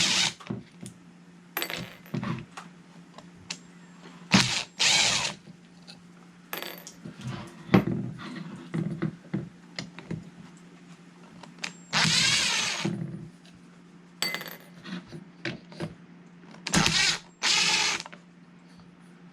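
Screws being backed out of a generator's fuel-system cover with a tool, in about eight short bursts, some with a wavering whine, between small clicks of parts being handled, over a steady low hum.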